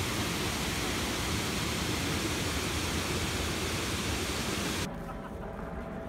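Water pouring over a low river weir: a steady, even rushing. It cuts off suddenly about five seconds in, giving way to quieter open-air sound with a few faint ticks.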